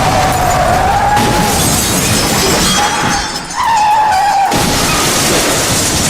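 Car crash sound effect: loud crashing and shattering glass, with a wavering tyre screech at the start and again about three seconds in.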